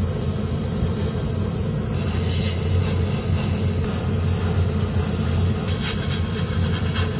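Airbrush compressor running with a steady low hum, while the airbrush hisses in a few short bursts of paint spray near the end.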